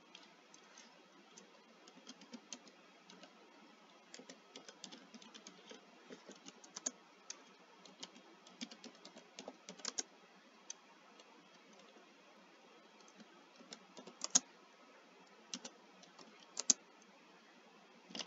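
Typing on a computer keyboard: irregular keystrokes in short runs with pauses, a few strokes louder than the rest.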